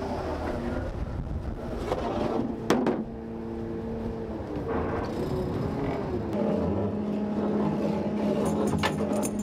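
Boat engine running, its pitch shifting up and down, with a sharp knock about three seconds in and another near the end.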